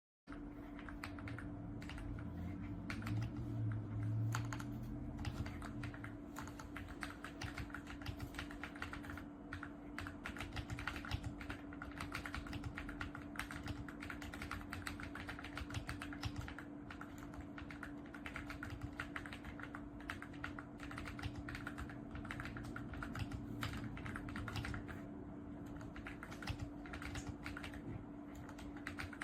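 AULA F99 mechanical keyboard being typed on quickly: a dense, continuous run of keystroke clacks that starts suddenly just after the beginning, over a faint steady hum.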